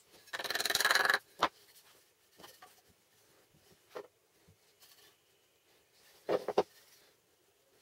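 Painted MDF parts handled on a wooden workbench: a rasping scrape about a second long near the start, then a sharp click. A few light taps follow, and near the end a quick cluster of knocks.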